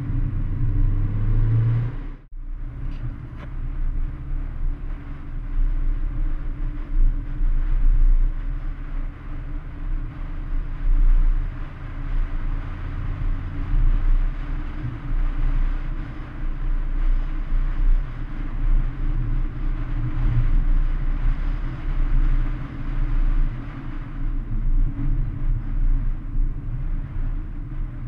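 Mercedes-AMG A45 on the move, dominated by loud wind noise and road rumble from a very rough road surface, with the engine barely audible underneath. The level drops briefly about two seconds in.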